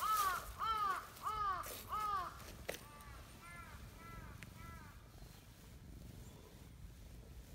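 A crow cawing: four loud caws in quick, even succession, then four fainter caws.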